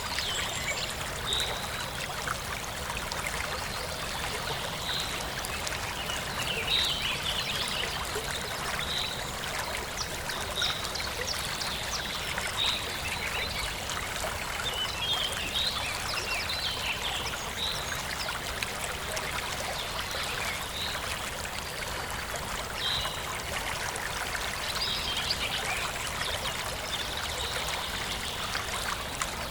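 Forest stream flowing and trickling steadily, with birds chirping short high-pitched calls every second or two.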